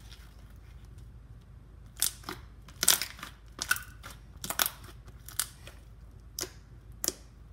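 Pink homemade glue slime being squished and folded by hand, giving a string of short, sharp crackles and pops that start about two seconds in and come irregularly.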